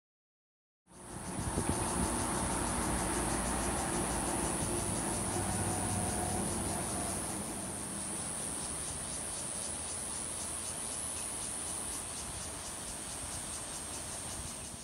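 Insects buzzing in a steady high-pitched drone, starting suddenly about a second in, over a low rumble.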